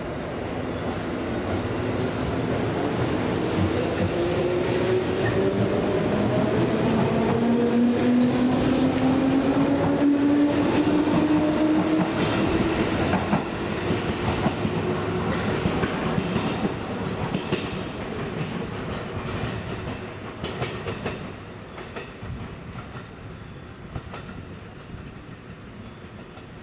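Electric train accelerating away from the station platform: its motor whine rises slowly in pitch as it gathers speed, and the wheels click over the rail joints. It grows loud, then fades over the last ten seconds or so.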